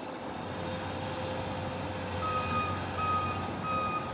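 Construction machine's backup alarm beeping at a steady pace, about three beeps every two seconds, starting about two seconds in, over the steady drone of its running engine.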